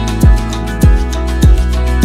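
Background music with a steady deep drum beat, a little under two beats a second, over sustained instrumental tones.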